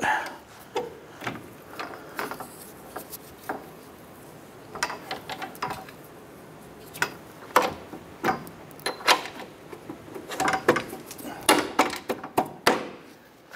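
Scattered metallic clicks and knocks, coming thicker in the last few seconds, as a screw jack under the front suspension is turned and the upper control arm and strut are pried to line the ball joint stud up with its hole.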